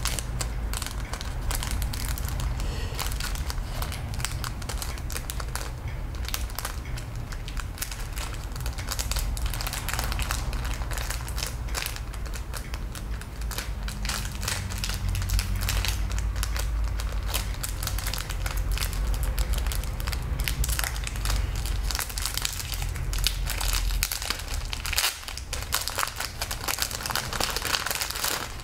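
Clear plastic bag packaging crinkling and crackling as it is handled and squeezed, with a low rumble of handling underneath. The crackling stops abruptly at the end.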